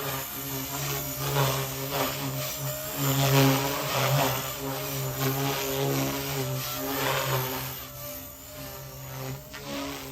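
Blade Fusion 180 SMART micro RC helicopter in flight: a steady buzz of its electric motor and spinning rotor blades that swells and eases several times as it moves about.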